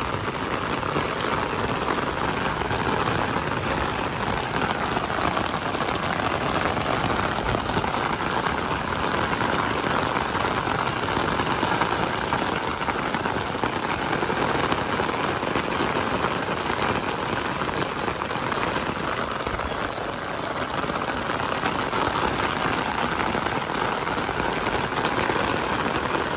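Steady rain falling and splashing on a wet concrete courtyard.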